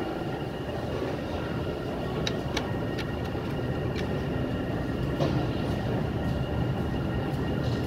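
A 1995 KONE inclined traction elevator running: a steady mechanical rumble with several steady whining tones, and a few sharp clicks in the first half.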